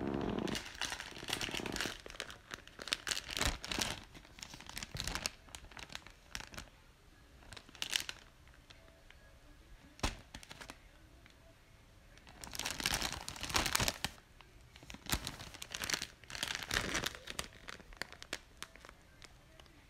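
Plastic packaging crinkling in several bursts as groceries are handled in a shopping cart, with a couple of sharp knocks in between.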